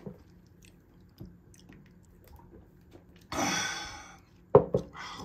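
A person eating: a short slurp about three seconds in, then a sharp knock and a softer one near the end, like a bowl or utensil set down on the table.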